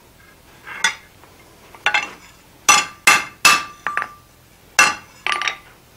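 Blacksmith's hammer tapping lightly on a hot steel bar on the anvil: about eight irregular metallic clinks, several ringing briefly.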